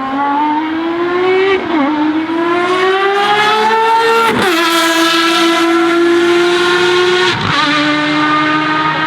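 Ferrari FXX Evoluzione's V12 engine accelerating hard on track, its pitch climbing through the gears with quick upshifts about two, four and a half and seven and a half seconds in.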